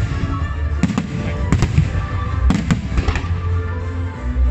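Aerial firework shells bursting in a rapid series of sharp bangs, one after another every half second or so, over music playing with steady sustained notes.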